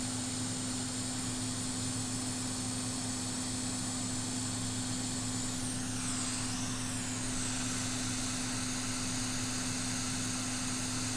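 Hot-air rework station blowing steadily: an even hum with a hiss of air.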